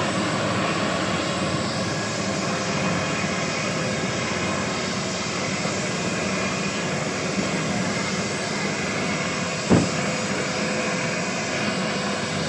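Eurocopter AS365 Dauphin helicopter running on the ground: a steady turbine rush with a faint even whine, unchanging throughout. A single short thump comes about ten seconds in.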